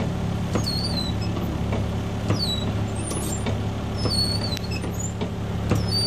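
School bus engine idling steadily, while the windshield wiper keeps sweeping and squeaking across the glass about every second and a half to two seconds: the wiper has stuck on and won't switch off.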